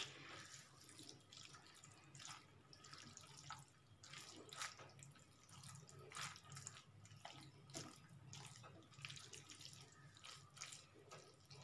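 Faint wet squelching and soft irregular clicks as a silicone spatula stirs pasta through thick white sauce in a pan.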